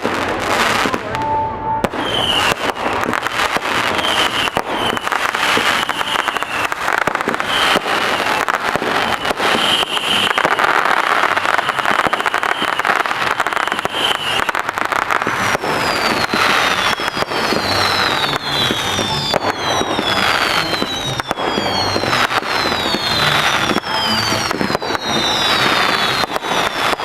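Fireworks display: rapid bangs and dense crackling, with a high held whistle through the first half and then a string of whistling shells, each whistle falling in pitch, from about halfway on.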